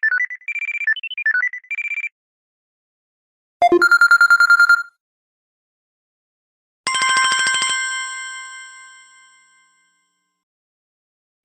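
Three short Samsung Galaxy Note (GT-N7000) notification tones in turn. First a brief chirping melody of single high electronic notes, then a rapid trilling beep about a second long, then a pulsing chime that rings out and fades over a couple of seconds.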